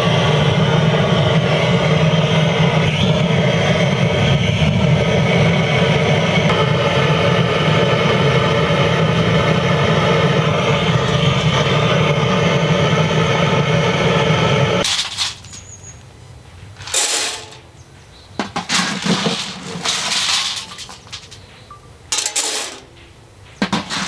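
Butane canister blowtorch running steadily, its flame aimed into a pellet stove's firepot to light the wood pellets. It cuts off suddenly about 15 s in, then fires again in four or five short blasts with quiet gaps between.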